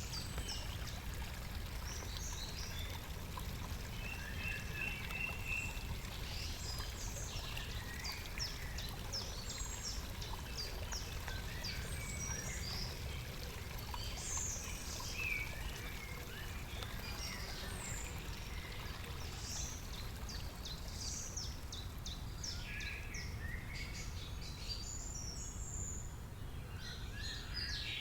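Several birds chirping and calling over and over, over a steady low rumble.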